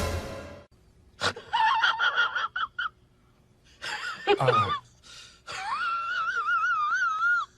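High-pitched, wavering cries from a small pet animal. Several short calls come first, then a falling cry, then one long quavering cry near the end.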